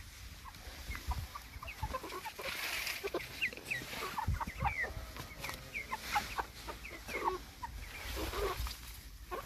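A flock of young Brahma chickens calling with many short, overlapping clucks.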